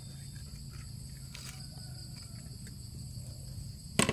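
Steady chirring of insects throughout, over a low hum. Near the end a wooden pestle strikes once into a clay mortar of sliced lemongrass, the loudest sound here.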